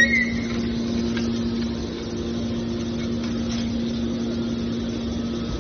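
Hydraulic power unit of a scrap metal baler press running with a steady hum. There is a short high squeal at the very start.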